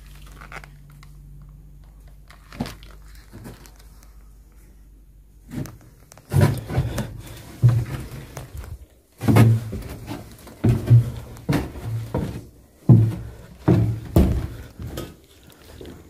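Footsteps thudding heavily on wooden floorboards and steps, about one a second, starting about six seconds in after a quieter stretch with a single knock.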